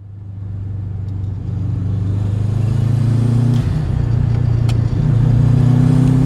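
Subaru WRX turbocharged flat-four engine running at raised revs, growing louder over the first couple of seconds. It is held up twice, with a brief dip about three and a half seconds in.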